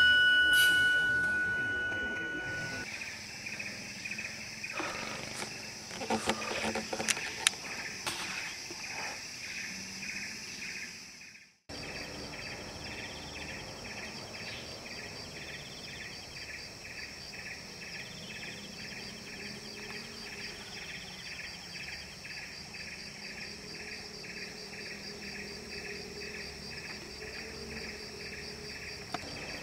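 Forest insects, cicadas or crickets, chirping steadily in a pulsing rhythm of about two a second, under a higher continuous buzz. Music fades out over the first couple of seconds, and a few short clicks and rustles come about five to eight seconds in.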